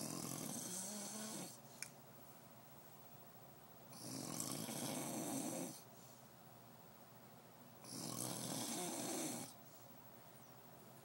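A sleeping man snoring loudly: three long, rasping snores about four seconds apart, with quieter breathing between them.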